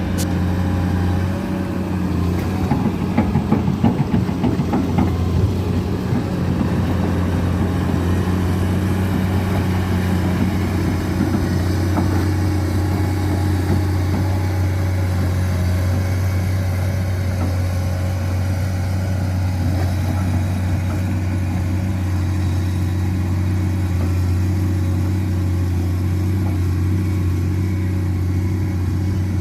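Komatsu excavator's diesel engine running steadily, with some uneven clatter over the first few seconds.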